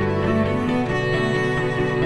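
Background music led by bowed strings, with cello and violin playing sustained notes; the bass line moves to a new note about half a second in.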